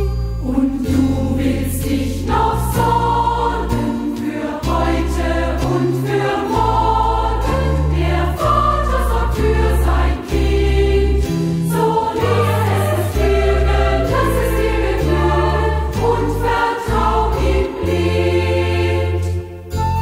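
Youth choir singing a German song over a low bass line of held notes that change about once a second.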